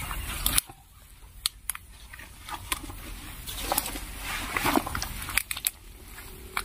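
Rustling and scattered clicks from clothing and a canvas shoulder bag being handled close to the microphone, with a low rumble that cuts off about half a second in.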